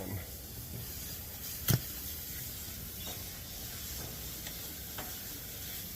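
A single sharp knock about two seconds in, as a nest box lid is handled and opened, followed by a couple of faint ticks, over a steady background hiss.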